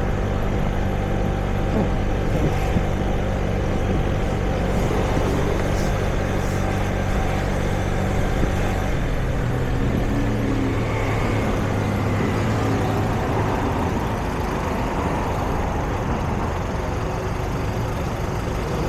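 City street traffic. A nearby vehicle engine hums steadily for about the first half, rises in pitch around the middle, then gives way to a broad, even traffic rumble.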